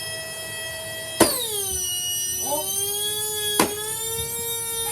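Shark Rotator vacuum cleaner motor running with a steady high whine. About a second in, a sharp bang and the whine drops steeply in pitch as the motor bogs down under load. A second knock follows later, and the pitch slowly climbs again.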